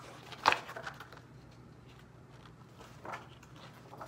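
A folded paper poster being handled and unfolded: a sharp rustle of paper about half a second in, then softer rustles and crinkles.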